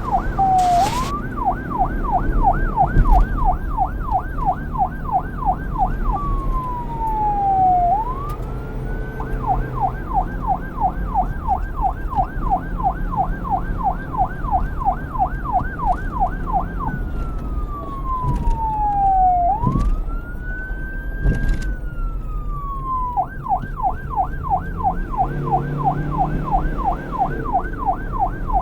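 Police car's electronic siren in fast yelp, about four rising-falling sweeps a second, breaking three times into slower long glides down and up before returning to the yelp, over a low rumble.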